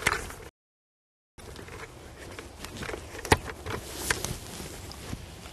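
Footsteps on dry, leaf-strewn ground and a few sharp knocks as a chainsaw is picked up and handled; the saw is not running. The sound cuts out completely for about a second near the start.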